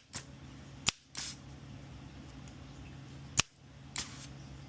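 Three sharp snapping clicks, the second about a second after the first and the third about two and a half seconds later, each of the last two followed by a short hiss, over a steady low hum, during desoldering of a burnt capacitor from a control board.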